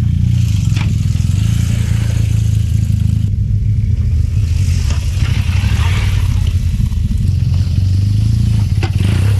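Big twin-cylinder adventure motorcycle engine running at low, steady revs while riding slowly over a rocky track, with a few sharp clicks of stones hitting the bike.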